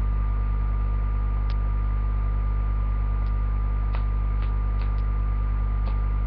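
Steady electrical mains hum with a faint high whine, the background noise of a webcam microphone, with a few faint light clicks as the doll's sleeper is handled.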